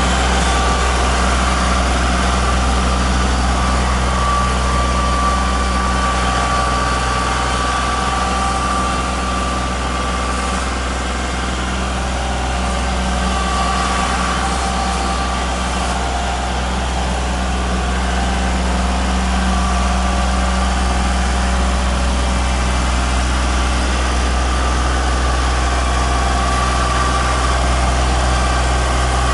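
Kubota compact tractor's diesel engine running steadily under load while the tractor works a dirt trail with its front loader and rear box scraper; it drops a little in loudness in the middle.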